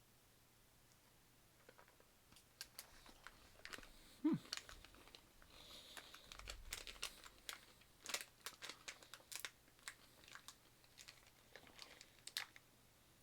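Faint, scattered crinkling of a plastic sweets bag with small clicks and crunches while Galaxy Minstrels, candy-shelled chocolates, are handled and eaten. A short, low sound falling in pitch stands out about four seconds in.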